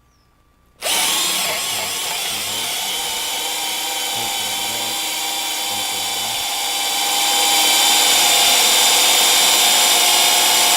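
Cordless drills, an older 14-volt drill and a Bosch PSB 1800 Li-2 18-volt drill, running and drilling with 8 mm bits. They start about a second in with a steady whine and get louder about seven seconds in.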